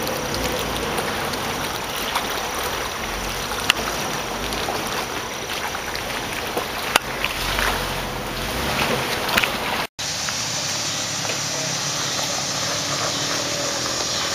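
Shallow creek water running over rocks, with a Jeep Wrangler's engine running as it drives up the rocky creek bed and sharp clicks of stones. The sound breaks off for an instant about ten seconds in, and a steadier, thinner noise follows.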